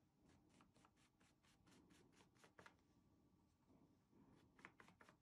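Very faint, rapid brush strokes: a flat brush working craft paint through a plastic stencil onto a cotton apron in small circles, about five strokes a second, stopping for a couple of seconds and starting again near the end.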